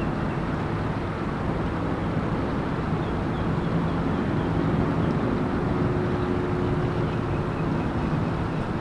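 Motorboat engine running steadily, a low even hum with a constant pitch.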